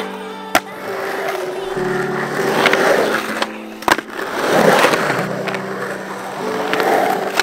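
Skateboard wheels rolling on concrete ramps, the rolling noise swelling and fading several times, with sharp clacks of the board about half a second in and again near four seconds. Background music with held notes plays throughout.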